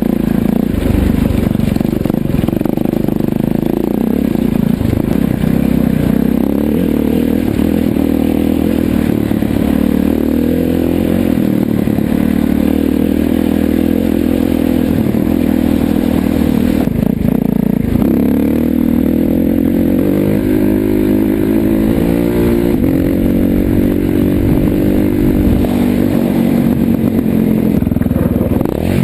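Motorcycle engine running hard under riding, the revs repeatedly climbing and dropping as it accelerates and shifts.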